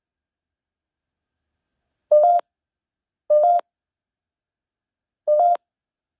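Three short electronic two-note beeps from the GhostTube ghost-hunting app, each about a third of a second, stepping slightly up in pitch. They come about two seconds in, a second later, and near the end, with silence between them.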